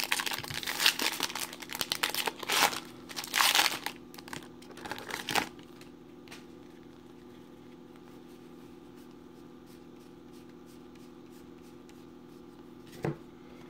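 Plastic wrapper of a baseball card pack being torn open and crinkled: crackly rustling in quick bursts for about five seconds, then only a faint steady hum.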